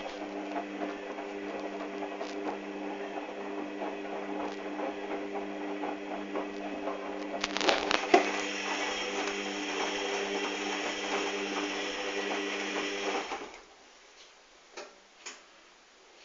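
Hoover Dynamic washing machine running in its rinse stage: a steady hum with a hiss, with a few sharp clicks about eight seconds in. It cuts off abruptly about thirteen seconds in, and a few faint ticks follow.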